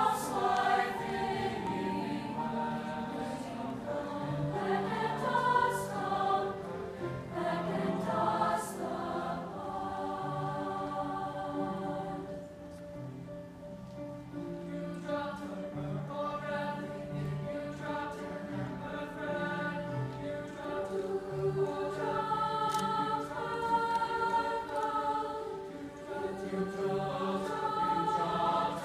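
Mixed high school choir of boys and girls singing together in sustained, many-voiced harmony, a little softer about halfway through.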